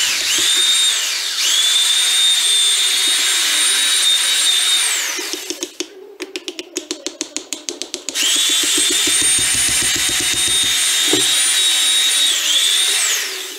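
A small handheld power tool's motor whining at high pitch in two runs of about four seconds each, each speeding up at the start and winding down at the end. Between the runs comes a quick series of clicks.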